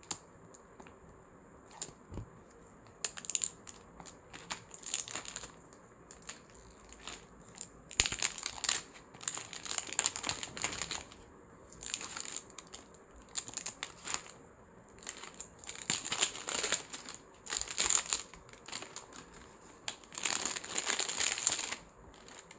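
Clear plastic wrapping crinkling and rustling in irregular bursts as it is handled and pulled around a small cardboard product box.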